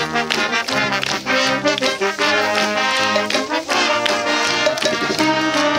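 High school marching band playing live: saxophones, trumpets and trombones carrying the tune over drums, loud and full.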